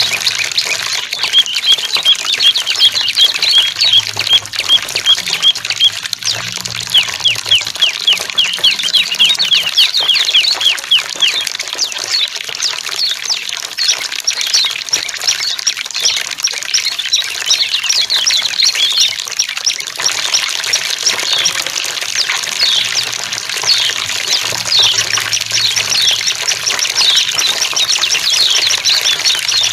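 Small songbirds chirping over steady running water. A run of sharp chirps comes about three a second through the first third, then quicker, higher-pitched calls. This is a water-therapy track used to prompt caged birds that have gone quiet to start singing.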